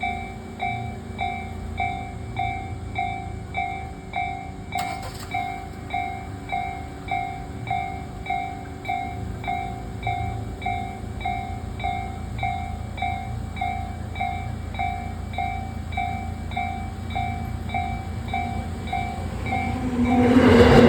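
Railway level-crossing warning bell ringing steadily, a little under two strikes a second, over a low rumble. Near the end a Tobu 8000 series electric train arrives, and its noise quickly rises to the loudest sound.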